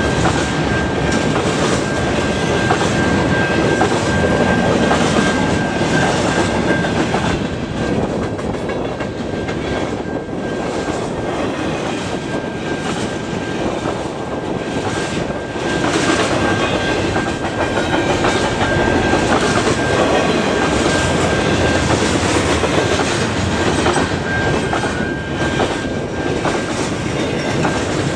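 Freight train cars rolling steadily past at close range, their wheels clacking over the rail joints. A steady high-pitched tone runs through much of it.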